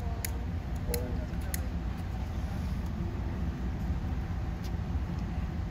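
Steady low rumble of a vehicle engine running close by, with a few sharp clicks in the first two seconds.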